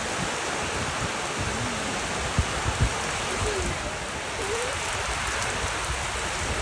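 Steady, heavy rain falling, with a few short low thumps mixed in.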